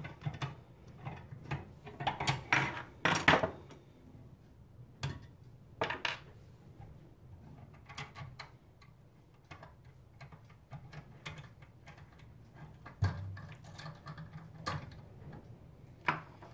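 Irregular metal clinks and clatters from a hand brake-pipe flaring tool being undone: the yoke loosened off the flare bar after pressing a bubble flare, and the clamping wing nuts backed off to free the pipe. The busiest clattering comes about two to three seconds in and again near the end.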